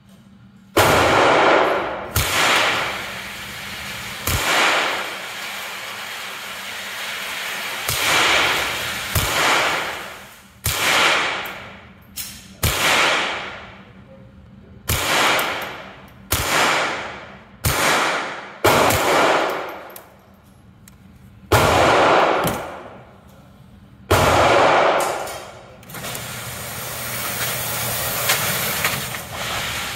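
GSG-16 .22 LR semi-automatic rifle fired one shot at a time on an indoor range: about fourteen sharp cracks, one to three seconds apart, each trailing off into a long echo. Near the end a steady running noise rises as the target carrier brings the paper target back.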